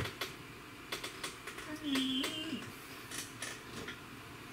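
Small metal hand tools clicking and tapping against the workbench as they are picked up and handled, in scattered light ticks, with a brief wordless vocal hum about two seconds in.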